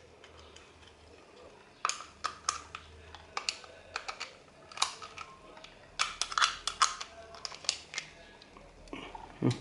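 Irregular light clicks and taps of small hard parts and screws being handled as a roller-shutter crank winch is reassembled, with a heavier knock near the end.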